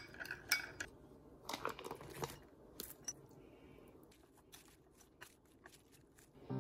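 Metal spoon clinking against a small glass bowl while stirring lemon juice dressing, several quick ringing clinks in the first second and a few more about two seconds in. After that, faint crunchy rustling of lettuce leaves being tossed.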